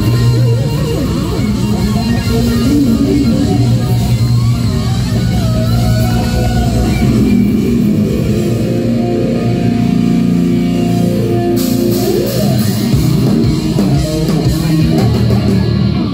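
Live hard rock band playing loud: electric guitar over bass guitar and drums.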